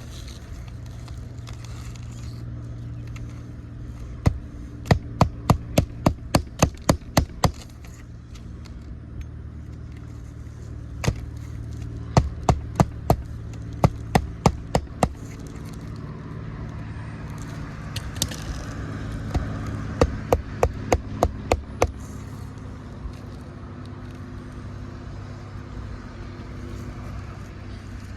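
Hammer driving roofing nails through an asphalt shingle: several runs of sharp strikes, about three a second, with short pauses between runs, as the lifted shingle is re-fastened. A short scrape comes between two of the runs, over a steady low hum.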